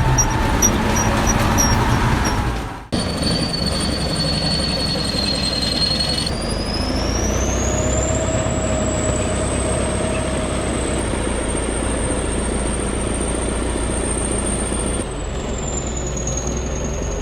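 Heavy crawler machine running steadily with a high-pitched whine over its diesel rumble; the whine glides upward about a third of the way in. The sound shifts abruptly a couple of times.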